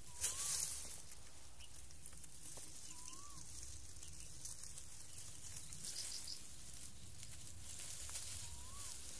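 Dry bamboo leaves rustling and crackling as snakes crawl over them, with a louder crackle just after the start. A bird gives a short whistled note three times.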